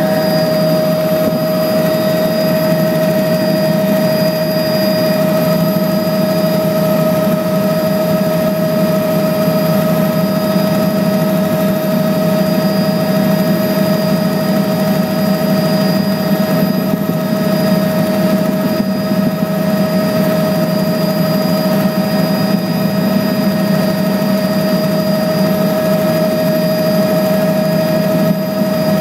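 Aircraft engine noise heard from inside the cabin in flight: a loud, steady drone with a constant hum and a clear held tone, unchanging throughout.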